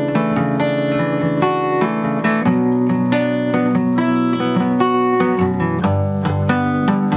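Acoustic guitar strumming chords in the instrumental intro of a song, with no singing yet.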